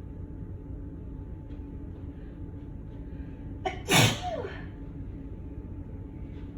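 A single sneeze about four seconds in: a quick catch of breath, then a sharp burst that trails off in a falling voiced tail, over a steady low background hum. It is an allergic sneeze set off by cigarette smoke.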